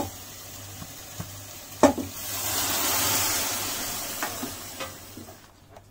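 Pressure-cooked vegetables sizzling in a hot kadai as they are stirred into the masala with a metal spoon. The spoon clinks sharply against the pan about two seconds in, and the sizzle swells for a couple of seconds in the middle, then fades.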